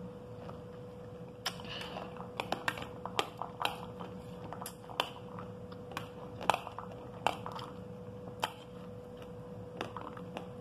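Eating pomegranate arils with a metal spoon: scattered, irregular sharp clicks of the spoon against a glass plate, with the arils and their seeds being crunched in chewing. A faint steady hum lies underneath.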